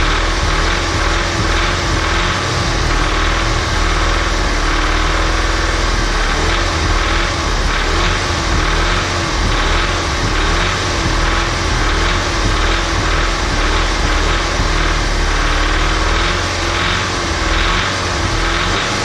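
Audi S3 2.0 TFSI (CDLA) turbocharged four-cylinder engine running near idle, its pitch rising and falling slightly a few times. Over the engine note runs an even, rhythmic clatter, which the owner likens to cam noise or a diesel.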